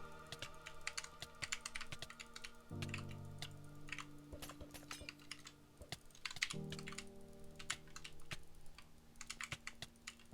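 Typing on a computer keyboard: a quick, irregular run of keystroke clicks, over background music of held chords that change about every four seconds.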